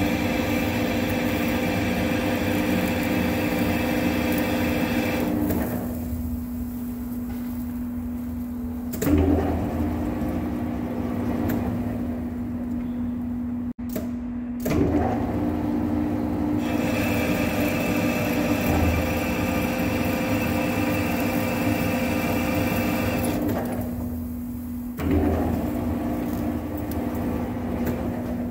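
Hafco TM-26120G centre lathe running while single-point cutting an 8 TPI external thread on an induction-hardened chrome bar: a steady drive whine under a higher cutting sound from the threading tool. The cutting sound drops away twice for a few seconds between passes, each time ended by a clunk.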